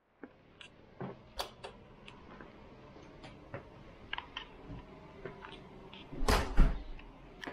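Scattered small clicks and knocks against a quiet background, with a louder clattering rustle about six seconds in.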